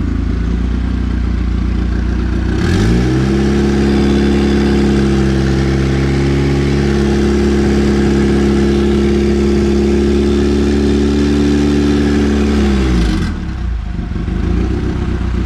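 Turbocharged Honda B20 VTEC four-cylinder idling, then revved up about three seconds in and held at a steady raised speed for about ten seconds before dropping back to idle. The revs are held to get the eBay turbo spinning and building boost.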